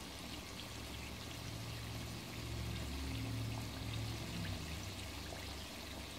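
Chicken drumsticks deep-frying in a pot of oil on low heat: a steady, gentle sizzle with small crackles throughout. A low hum swells slightly in the middle.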